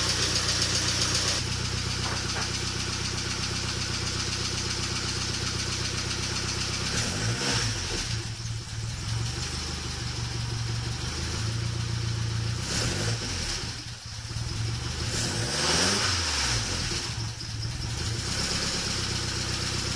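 Saab 900 Turbo 16's 2.0-litre turbocharged four-cylinder heard at the tailpipe of its stainless steel exhaust, idling steadily and then revved a few times in the second half, each rev rising and falling back to idle.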